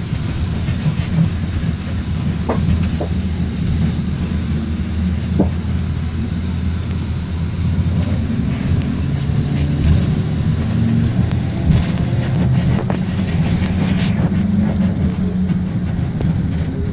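Steady low rumble of a bus's engine and tyres on a wet road, heard from inside the cabin, with scattered light rattles and clicks.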